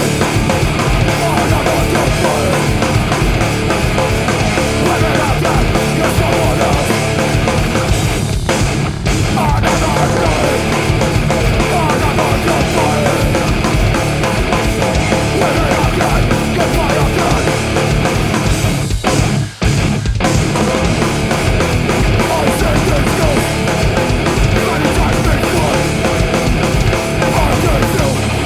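A heavy, distorted rock band playing at full volume: distorted electric guitar, bass and drums, with a brief break about twenty seconds in.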